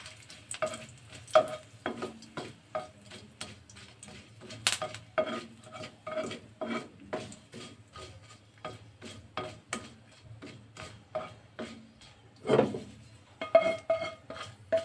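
Spatula scraping and tapping around a non-stick wok in quick repeated strokes, a few a second, with a couple of louder knocks. It is stirring mustard seeds, a dry red chilli and curry leaves in hot oil while the tempering (tadka) is sautéed.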